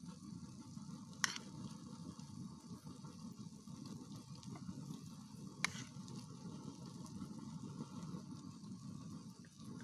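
Egg omelette frying faintly in an oiled pan, a steady low sizzle, with two sharp clicks about four seconds apart.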